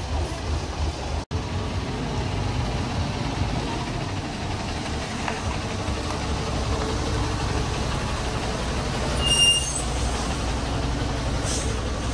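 Heavy diesel engine running with a steady low rumble, broken by a momentary dropout about a second in. About nine seconds in comes a brief high-pitched squeal.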